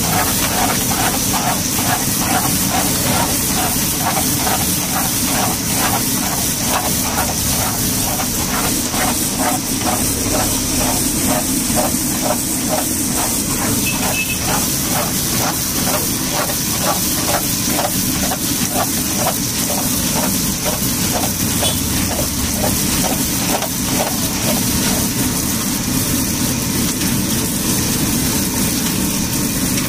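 Hot oil sizzling steadily in a large iron wok as a batch of puris deep-fries. Under it runs a rhythmic mechanical clatter of about two to three beats a second, which fades out about three quarters of the way through.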